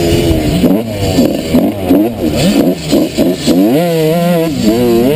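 2003 Suzuki RM125's 125 cc two-stroke single engine revving up and down repeatedly as the throttle is worked around the track. It rises to a longer, held high run about four seconds in, then drops off.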